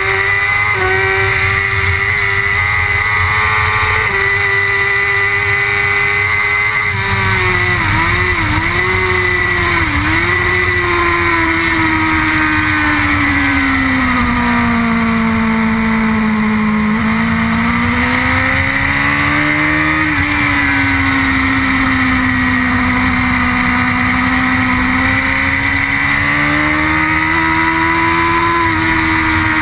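BMW S1000RR's inline-four engine at race speed, recorded on board the bike with wind rush. The revs dip quickly a few times about eight to ten seconds in, sink slowly to a low around the middle, then climb again.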